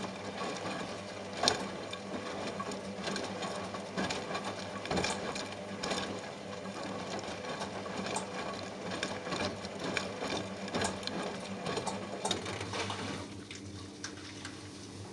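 Front-loading washing machine drum turning during a wash, tumbling a soaked plush toy through soapy water: a steady motor hum with irregular sloshing and splashing. It stops about thirteen seconds in.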